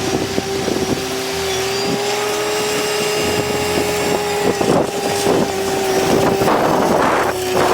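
A small motor running steadily with a hum, over a hiss, with scattered clicks.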